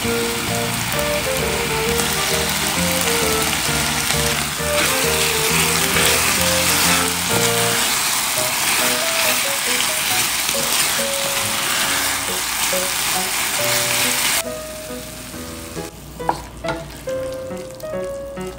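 Chicken and vegetables in a sticky soy glaze sizzling in a stainless steel pan as they are stirred, over background music. The sizzle drops off sharply about two-thirds of the way through, leaving quieter stirring with a few sharp clicks.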